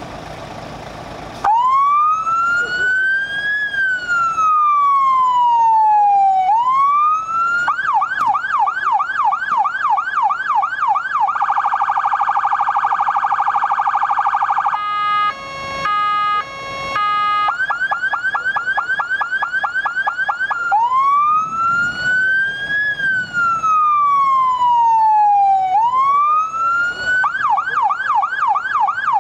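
Szczęśniak PS-200 electronic siren on a MAN TGE fire van cycling through its tones. It starts about a second and a half in with a slow rising and falling wail, then a fast yelp of about three sweeps a second, a rapid steady warble and a stepped two-tone pattern, then yelp again, another slow wail and yelp.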